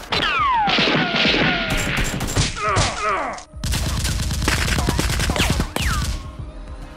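Gunfire sound effects: rapid shots mixed with whines that fall in pitch like ricochets. After a short break about halfway through comes a dense run of rapid automatic fire, then one last falling whine.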